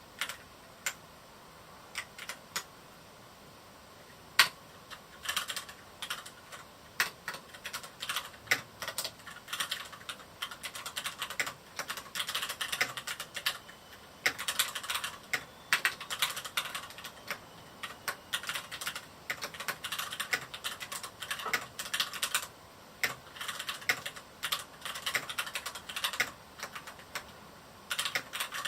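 Typing on a Varmilo Miya68 mechanical keyboard with Cherry MX Red linear switches. A few scattered keystrokes and one louder stroke come first, then fast runs of typing broken by short pauses.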